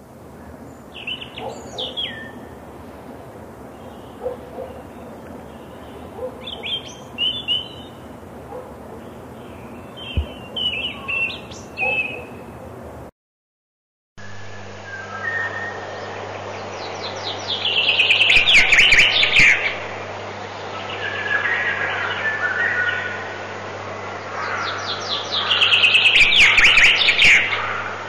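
European robin singing short, high, thin phrases. After a brief silence about halfway, a common chaffinch sings two loud songs, each a falling run of notes.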